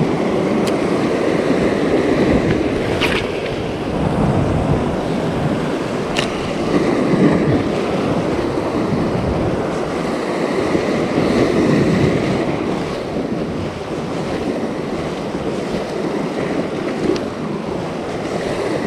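Sea waves washing and breaking over shore rocks, with wind buffeting the microphone. A few sharp clicks stand out over the steady wash.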